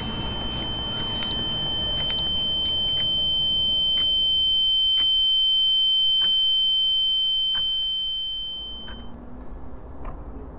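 A steady high-pitched tone, like a ringing in the ears, that swells in loudness and then fades out about nine seconds in, over a low rumble with a scattering of faint clicks.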